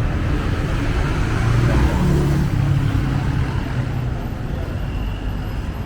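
Street traffic: a motor vehicle's engine running close by over a steady traffic rumble, swelling about two seconds in as it passes and easing off after.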